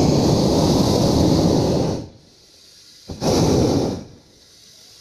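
Hot air balloon's propane burner firing in two blasts: a roar of about two seconds, then a shorter one of under a second about three seconds in.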